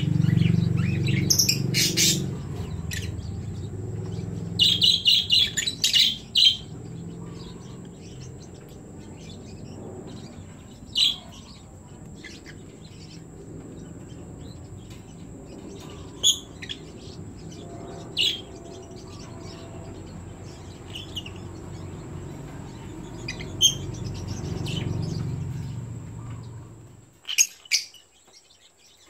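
Yellow lovebirds chirping: short sharp high calls every few seconds, with a quick run of chirps about five seconds in. A low steady rumble underneath stops near the end.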